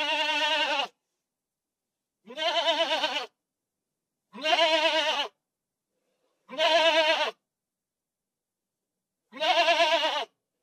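Goat bleating five times, each call about a second long with a quavering pitch, separated by silent gaps of one to two seconds.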